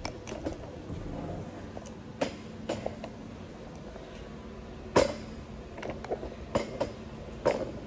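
Scattered light knocks and clicks, the loudest about five seconds in, over a low steady hum.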